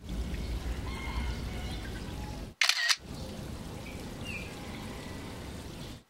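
An SLR camera shutter click about two and a half seconds in, and another just at the end, each a short sharp burst after a brief drop-out. Between them runs a steady outdoor background with a low rumble.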